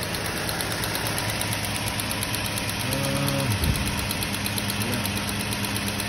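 Chrysler Sebring's 2.7-litre V6 idling steadily while misfiring on cylinder one, with the misfire counter for that cylinder still climbing.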